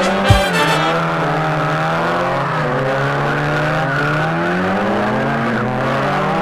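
Mazda MX-5 Miata's four-cylinder engine held at high revs while drifting. Its pitch sags through the middle and climbs again toward the end.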